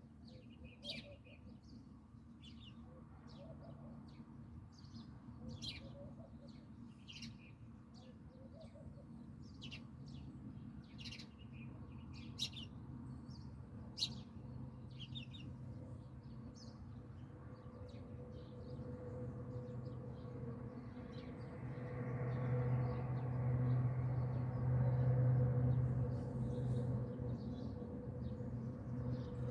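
Small birds chirping, many short high calls in quick succession, over a steady low mechanical hum. The chirps thin out and the hum swells about two-thirds of the way through.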